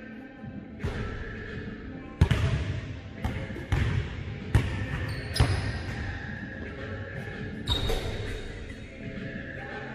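Basketball bouncing on a gym floor during shooting practice: a string of sharp, irregular thuds, each trailing off in the echo of the large hall.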